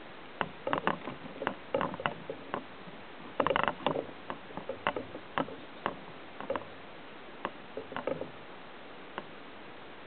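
Irregular clicks and taps of a small sparrow hopping and pecking at seed on a metal feeder tray, with a quick cluster of rattling taps about three and a half seconds in.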